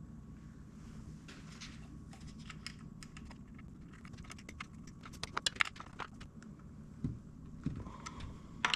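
Scattered light clicks and taps of hand tools and bolts on a chainsaw's body as felling dogs are being bolted on, with a quick run of clicks about five seconds in, over a faint low hum.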